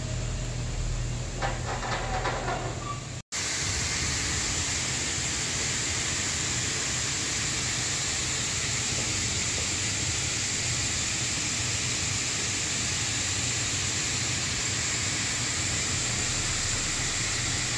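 Fire-suppression foam system discharging: a loud, steady rushing hiss of foam pouring down from ceiling outlets. It begins abruptly about three seconds in, after a low rumble.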